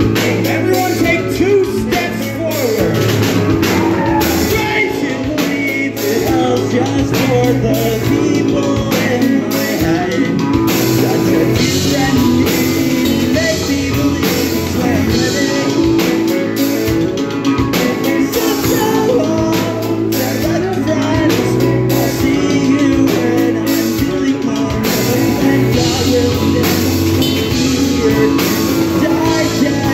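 Rock band playing live: electric guitar, bass guitar and drum kit together, loud and continuous.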